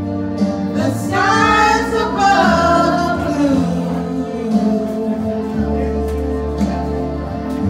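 A woman singing into a microphone over amplified backing music with long sustained bass notes; her voice is most prominent between about one and three and a half seconds in.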